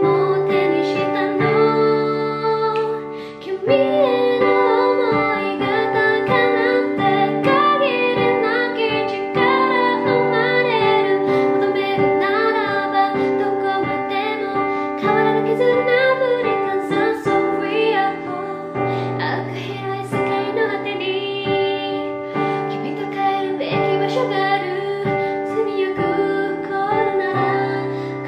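Background song: a high singing voice carries a melody over a keyboard accompaniment, with a brief dip in level about three seconds in.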